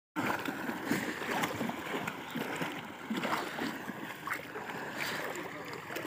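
People wading through knee-deep floodwater: sloshing and splashing with each stride, about two splashes a second.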